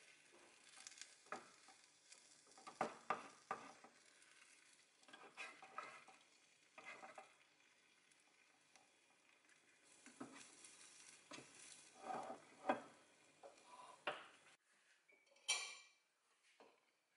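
A wooden spatula scraping and knocking against a square nonstick tamagoyaki pan as a rolled egg omelette is turned and rolled, over a faint sizzle of egg frying. Near the end there is a brief scraping clatter.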